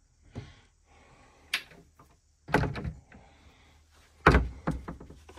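Wooden cabin door of a small cruiser's toilet and shower compartment being handled and shut, giving a string of knocks and thumps, the loudest and deepest about four seconds in.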